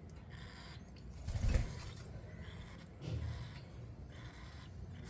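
Cockatiel chicks giving faint begging calls while being hand-fed, with two short low bumps about one and a half and three seconds in.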